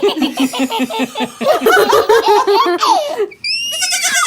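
Young child laughing hard in quick, repeated bursts. It breaks off briefly near the end, followed by a high-pitched rising sound.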